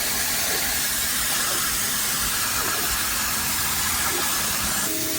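Electric pressure washer blasting a jet of water onto a concrete sidewalk: a steady, even hiss of high-pressure spray.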